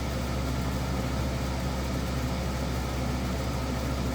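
EcoFlow Wave portable air conditioner running steadily with its compressor on under full load, drawing close to its peak of about 578 watts: a constant hum.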